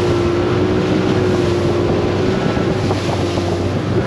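Motorboat engine running steadily at cruising speed, with wind buffeting the microphone and the rush of water from the hull and wake.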